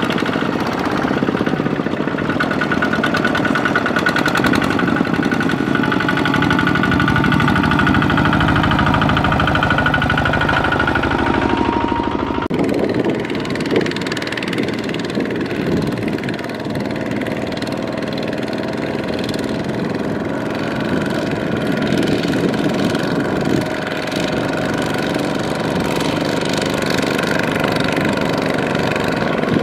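Kubota RT140 walking tractor's single-cylinder diesel engine chugging steadily under load as it hauls a trailer through a soft field, with an abrupt change in the sound about twelve seconds in.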